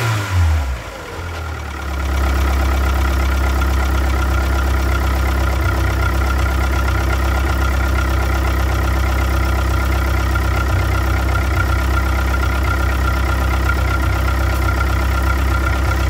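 A 1998 DSM's 420A 2.0-litre four-cylinder engine drops back from a rev in the first second, then idles steadily from about two seconds in. The owner suspects the engine's knocking noise is a failing rod bearing.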